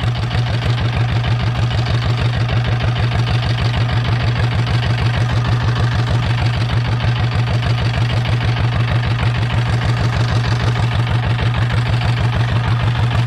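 Fishing boat's engine running steadily, with an even, rapid pulse and a strong low hum.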